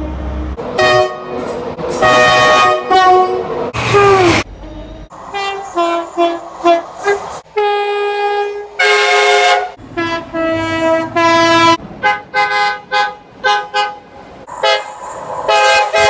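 British train two-tone horns sounding many short blasts, mostly paired high and low notes, from several different trains, with abrupt cuts between clips. One blast falls in pitch as its train passes.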